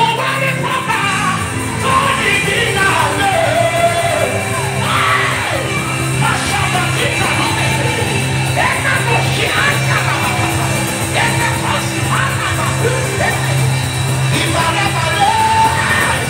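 Live worship music: a man sings and shouts praise into a microphone over a steady held chord, with other voices singing and calling out alongside.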